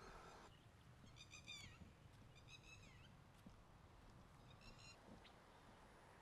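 Three short, faint, high-pitched animal calls over near silence, each bending down in pitch at its end. A low steady hum stops about half a second in.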